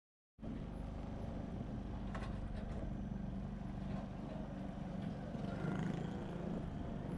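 Steady low rumble of a moving motor vehicle, engine and road noise together, cutting in abruptly after a split second of silence.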